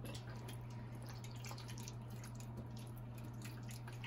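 Soft wet squelching and irregular clicks of yogurt-marinated chicken pieces being mixed in a bowl, over a steady low electrical hum.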